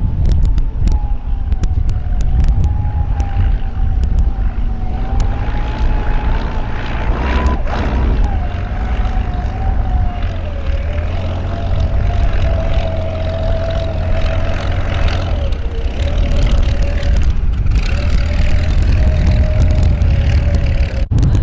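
Classic unlimited hydroplane's engine running under power: a deep rumble under a single whine that wavers and slowly falls in pitch, dipping briefly a couple of times near the end.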